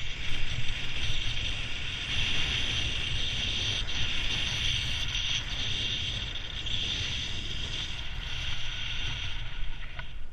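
Steady hiss of snow sliding under a rider's skis or board on a fast downhill run, with wind buffeting the microphone as a low rumble underneath.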